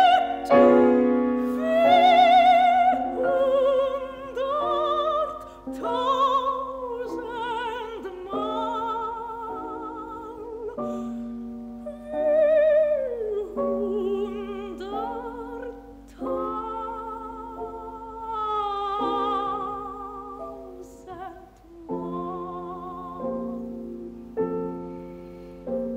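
A soprano sings a German art song with vibrato, over piano accompaniment, in a 1953 recording. About 22 seconds in the voice stops and the piano plays on alone.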